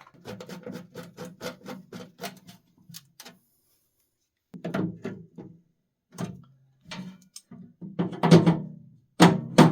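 Small metal parts and tools clicking and knocking against the steel parts washer. A quick run of sharp clicks with a low ringing comes first, then a pause, then several separate knocks, the loudest near the end.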